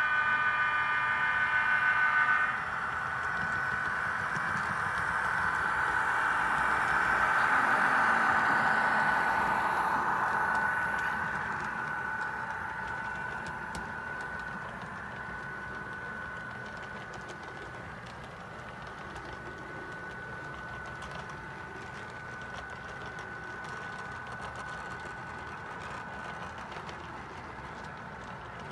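A model diesel locomotive's horn chord cuts off about two seconds in. Then an HO-scale double-stack intermodal train runs past with a steady whine and rolling clatter from its wheels and motor, swelling as the cars pass close and fading as the train moves away.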